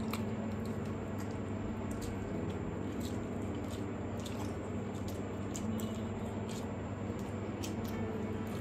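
Close-up eating sounds of mutton curry and pulao: wet squishing and irregular small clicks of chewing. A steady low hum runs underneath.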